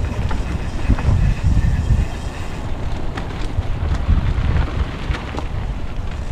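Wind buffeting the microphone of a camera moving fast along a dirt trail: a heavy, uneven rumble with scattered short knocks and rattles from the bumpy ride.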